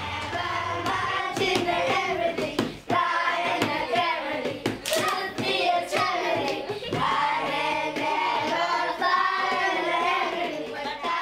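A group of boys singing together with hand clapping mixed in.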